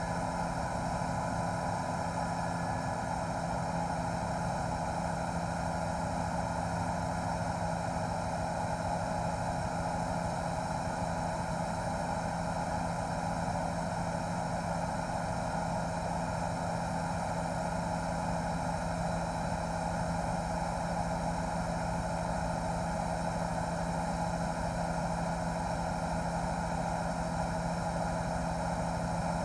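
News helicopter's engine and rotor noise heard from on board: a steady, unchanging drone with a constant low hum and a higher whine.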